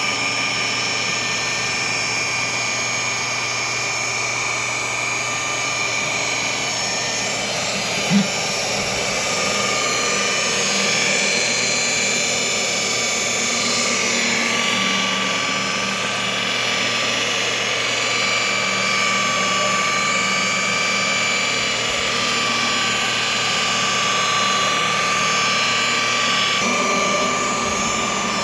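Electric rotary polisher running steadily with a whine as it polishes car window glass. A brief knock about eight seconds in.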